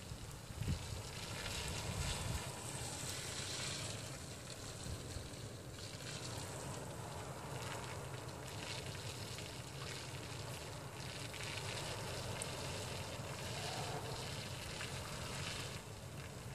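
Blizzard wind blowing in a steady rush that swells and eases a little, with a low rumble of wind on the microphone underneath.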